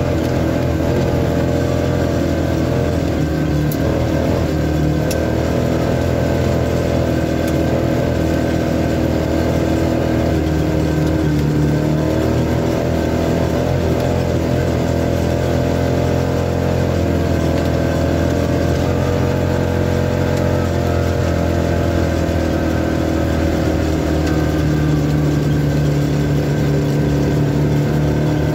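Steady motor hum made of several pitched tones, drifting slowly up and down in pitch without sharp revs.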